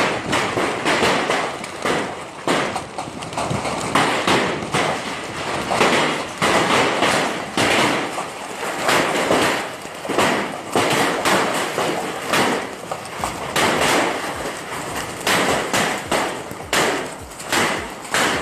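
Hailstones pelting hard surfaces: a dense, irregular clatter of thuds and taps over a steady hiss of falling ice.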